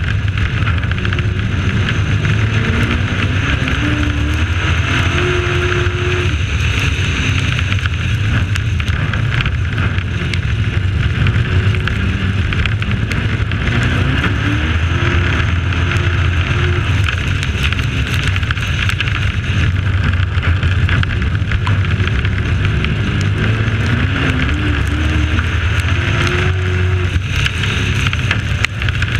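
Dirt-track race truck engine at racing speed, heard from an onboard camera outside the cab with a heavy rush of wind and road noise. The engine note rises three times, as the truck accelerates out of the turns, with scattered small ticks over the rumble.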